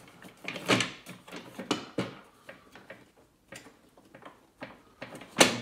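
Hard plastic parts of an air filter housing in a BMW N63 engine bay being worked loose by hand: irregular clicks, scrapes and knocks, with one sharp knock near the end.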